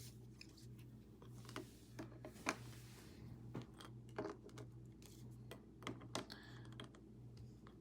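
Irregular light clicks of typing on a computer keyboard, over a steady low hum.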